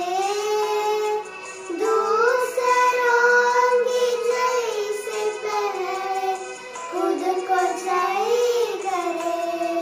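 Two young girls singing a prayer song together in unison, with long held notes that glide from one pitch to the next.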